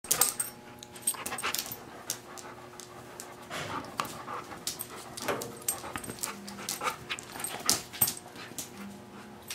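Two dogs panting and jostling close up, with many sharp clicks and knocks scattered through.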